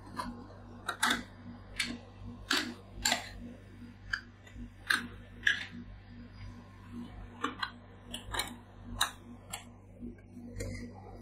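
Metal spatula scrapers striking, chopping and scraping a frozen mixture on the steel plate of a rolled-ice-cream cold pan: sharp irregular clicks and scrapes, over a low steady hum.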